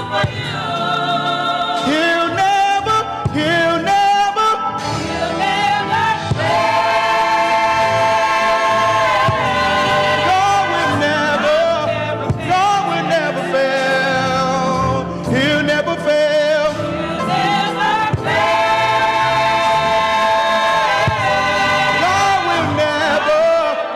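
Gospel choir singing in harmony, the voices holding long notes with vibrato over a low accompaniment.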